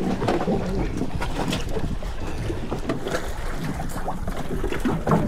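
Strong wind buffeting the microphone and waves splashing against a small fishing boat, with scattered knocks and clicks.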